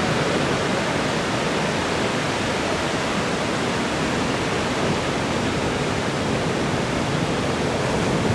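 Steady roar of heavy ocean surf breaking, an even rushing noise with no pauses.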